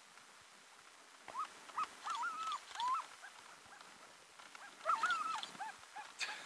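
Alaskan husky sled dog making excited yelping, whining cries, short wavering calls that bend up and down in pitch. They come in two bouts, one starting about a second in and another about five seconds in.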